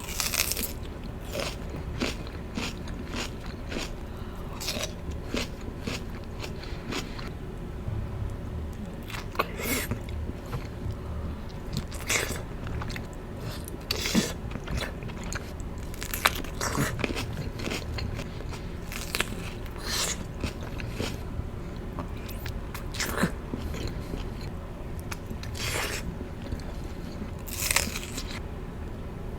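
Close-miked eating: crunchy bites and chewing, with sharp crackly crunches coming irregularly about every second or two.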